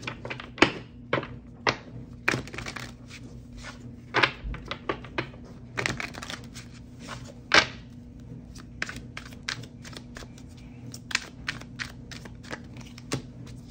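Oracle cards being shuffled and handled: irregular sharp taps and slaps of the deck, a few a second, with a low steady hum underneath.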